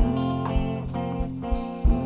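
Jazz band playing, with sustained guitar chords over a steady beat.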